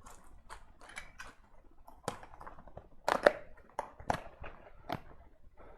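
Irregular light clicks and short rustles of small electronic parts and their plastic bags being handled while searching for a resistor among spares.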